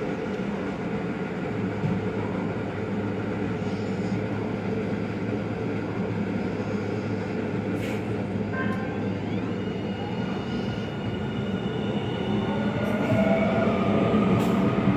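AnsaldoBreda P2550 light rail car standing with a steady electrical hum, then pulling away: its traction motors set up a whine that climbs in pitch and grows louder as the train accelerates. A brief knock comes about eight seconds in.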